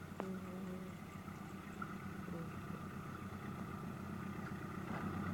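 Diesel locomotive of an approaching passenger train running with a steady low hum that grows gradually louder, a faint steady whine above it.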